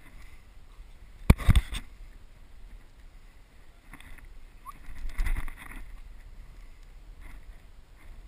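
Steady low rumble of wind and handling noise on an action camera's microphone. A single sharp crack comes about a second in, followed straight away by a short clatter of knocks, and a longer rustling clatter follows around five seconds in.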